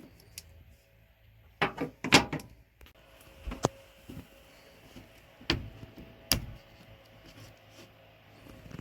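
A series of scattered knocks and clunks, about six sharp hits spread over several seconds, the loudest about two seconds in.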